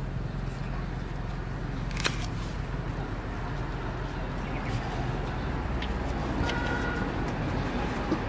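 A few sharp taps of a knife slicing fruit against a wooden chopping block, over a steady low rumble of background noise.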